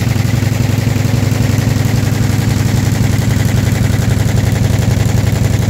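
Multi-needle quilting embroidery machine (66 needles) stitching, a loud, fast and steady mechanical clatter.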